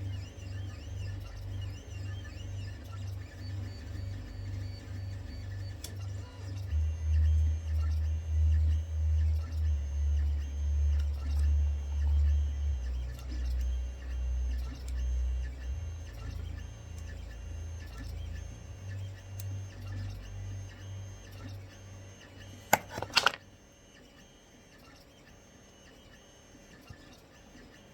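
Background music with a steady pulsing bass beat, which stops about 23 seconds in, just as a quick cluster of sharp clicks is heard. Low room tone follows.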